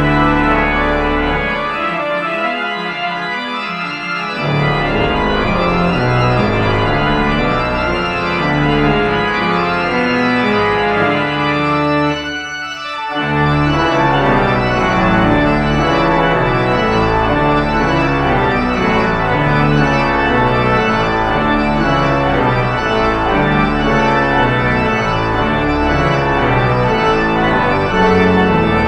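Steiner-Reck pipe organ playing loud, full chords with deep pedal bass. The bass drops out for about two seconds near the start, and the music breaks off for a moment about twelve seconds in before going on.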